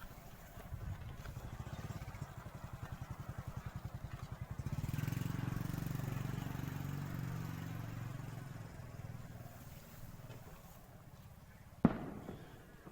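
A dove cooing: a rapid rolling run of low pulsed notes that swells into a longer, steadier coo. A single sharp knock comes near the end.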